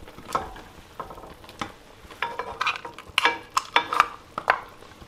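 Chopsticks and crab shell pieces knocking and clinking against a wok of ramen broth as ingredients are added and moved about. A scattered series of sharp clacks, busiest in the second half.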